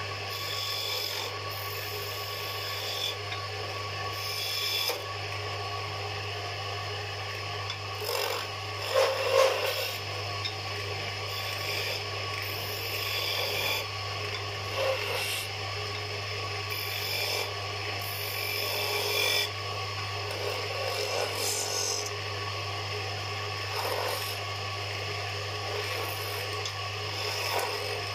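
Wood lathe running with a steady motor hum while a hand-held turning chisel cuts into a spinning wooden spindle. The scraping of the cut comes and goes in strokes, loudest about nine seconds in.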